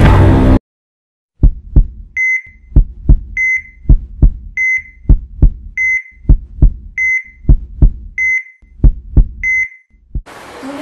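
A loud burst of noise stops abruptly at the start. After a short gap, a heartbeat plays as low double thumps, with a patient heart monitor beeping in time: seven short high beeps about a second and a quarter apart.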